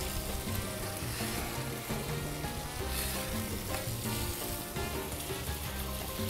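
Diced tomato, onion and ham sizzling as they drop into hot oil in a frying pan, with a knife scraping them off a plastic cutting board. Soft background music plays underneath.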